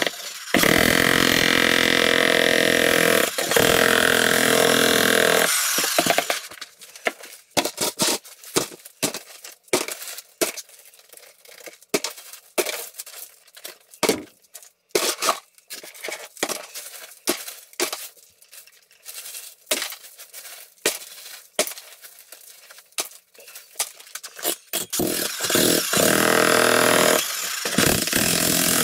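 Electric jackhammer breaking a concrete floor slab, running steadily for about five seconds and then stopping. A long run of scattered clinks and knocks follows as broken concrete chunks are picked up and dropped into a bucket, and the jackhammer starts again near the end.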